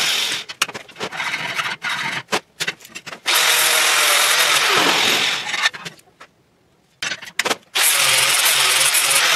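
Angle grinder grinding a bevel onto the edge of 3/8-inch steel plate: a dense, high hiss of the disc on steel. It comes in short, choppy stretches for the first few seconds, runs steadily, drops out briefly around six seconds in, then runs steadily again.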